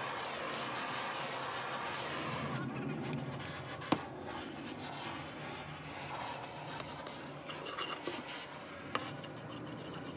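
Beeswax being rubbed onto a flame-charred wooden board, a dry scratchy rubbing. A steady hiss fills the first two to three seconds, there is a sharp knock about four seconds in, and a few small clicks come near the end.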